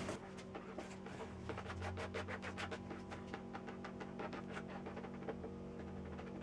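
Paint pad applicator pushing wet polyurethane across a wooden desktop: a run of light, irregular clicks and scrapes over a steady low hum.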